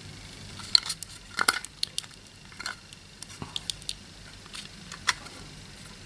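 Irregular light clicks and taps of small metal parts and hand tools being handled, as a replacement fuse is tried against a power adapter's circuit board.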